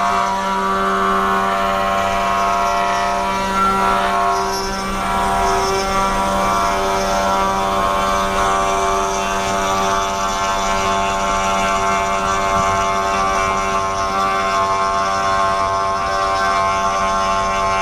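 500 W spindle on a 3018 desktop CNC router, its end mill cutting a slot about a quarter inch deep into wood: a loud, steady whine with many overtones over the noise of the cut. The level dips briefly about five seconds in.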